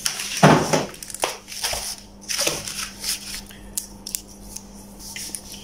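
A sheet of paper being handled, rustling in several short bursts, then a few light clicks and taps, over a faint steady hum.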